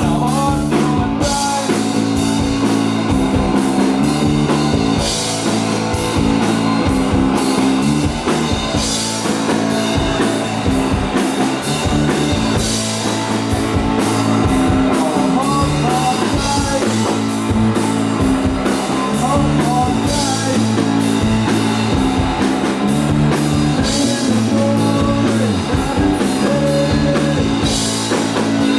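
A live rock band playing a song loud and steady, with electric guitar and drum kit.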